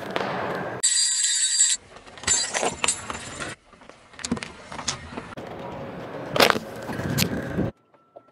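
A car tyre rolling slowly over small objects, crunching and cracking them, in a string of short clips that cut abruptly from one to the next. The loudest sharp cracks come about six and a half and seven seconds in.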